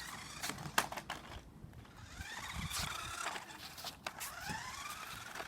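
Radio-controlled toy car's electric motor whining as it speeds up and slows down, its pitch rising and falling several times, with a few sharp clicks or knocks in the first second.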